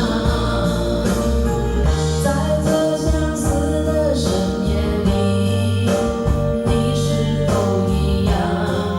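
A song with singing over a backing track with bass notes and a steady beat, played loud through a karaoke sound system.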